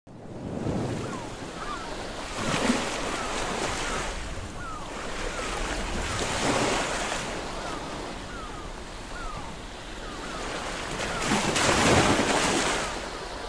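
Sea waves washing in repeated swells, the biggest near the end, with gulls giving short falling cries over and over.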